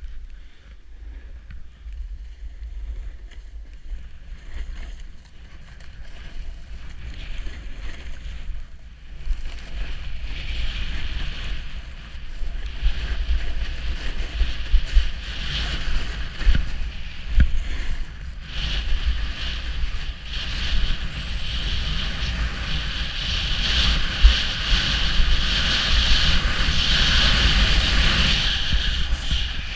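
Wind buffeting the microphone over the scraping hiss of skiing down a snow slope. It grows louder and steadier about a third of the way in as speed builds, and is loudest near the end.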